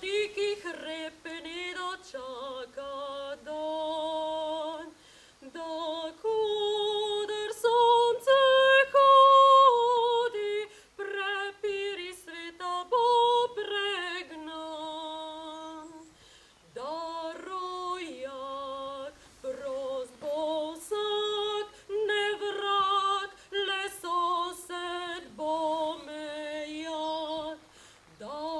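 A woman's voice singing unaccompanied, a cappella, in long held phrases broken by short pauses for breath.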